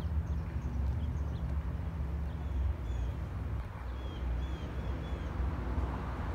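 A low, steady rumble with a small bird chirping a few short, falling notes in the second half.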